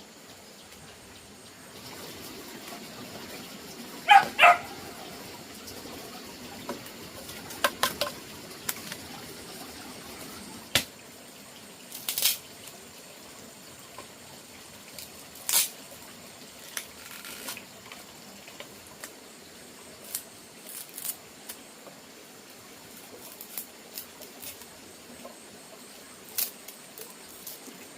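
A dog barks twice in quick succession about four seconds in, followed by scattered short clicks and water sounds.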